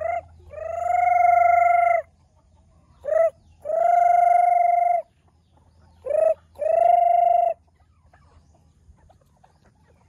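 Rooster crowing three times, a few seconds apart; each crow is a short note followed by a long, level held note. A faint low hum runs under the first half.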